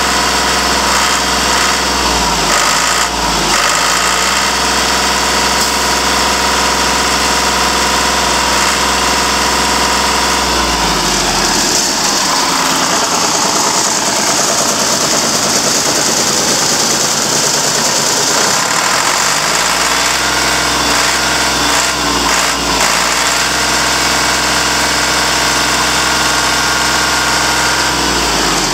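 Deutz F3L912 air-cooled three-cylinder diesel engine running. About ten seconds in, its note changes and stays changed for several seconds before settling back to the earlier steady running.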